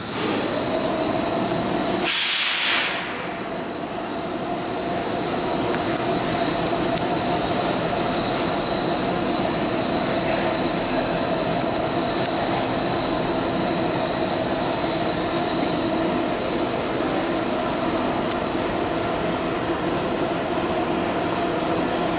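Vintage New York City subway train of D-Type and Arnine cars: a loud burst of compressed-air hiss about two seconds in, then a steady hum with a high whine over the rumble of the train.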